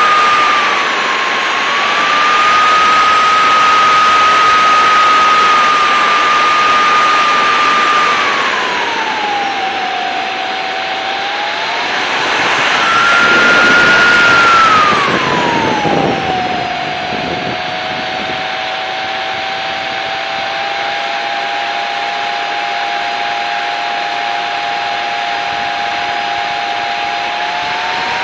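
Engine of an RC model jet running at taxi power: a steady whine with a thin high whistle and a rushing noise. The pitch drops about a third of the way in, and about halfway through there is a short louder throttle-up. It then settles to a lower, steady whine.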